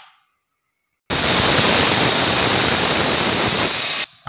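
Stovetop aluminium pressure cooker whistling: steam rushes out under the weight valve in one steady hiss for about three seconds, starting about a second in and cutting off abruptly, the sign that the cooker has come up to pressure.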